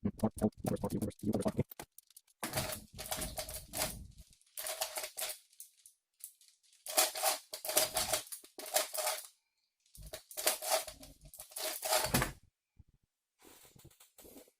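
A speedcube being turned rapidly by hand: the plastic layers click and rattle in quick bursts of turns, with short pauses between the bursts.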